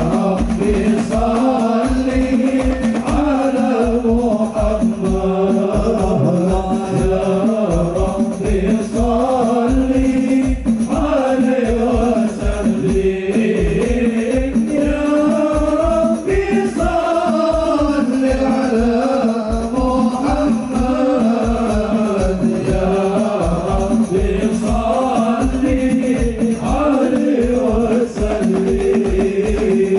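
Sholawat, Islamic devotional singing: a voice sings a melodic line over a fast, steady drum beat.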